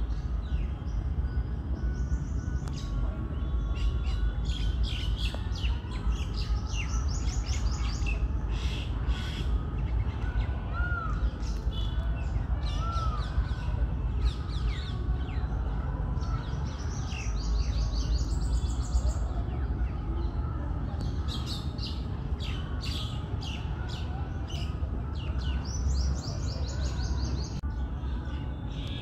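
Several wild birds calling in the trees: four bouts of rapid high trills and many short sharp notes, with a couple of brief rise-and-fall whistles, over a steady low rumble.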